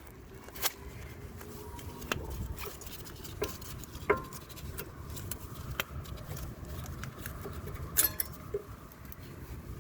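Scattered metallic clicks and clinks, a few briefly ringing, as steel-backed front brake pads and their clips are worked out of the caliper bracket. The sharpest click comes about eight seconds in.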